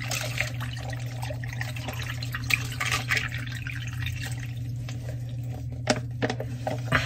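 Drink poured from foil pouches into plastic cups packed with ice: liquid trickling over the ice with a light crackling. A few sharp clicks near the end.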